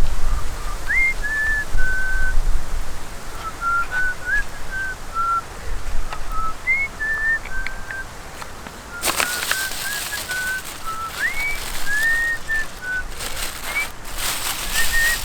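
A string of short whistled notes, each held at one pitch with a few quick upward slides, running through most of the stretch. A burst of hiss comes about nine seconds in and another near the end.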